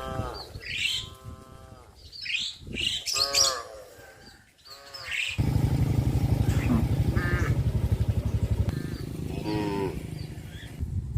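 Cattle mooing, several calls in the first half and another near the end, with birds chirping. About halfway in, a loud, steady, low, rapid throbbing starts and carries on, easing off in the last few seconds.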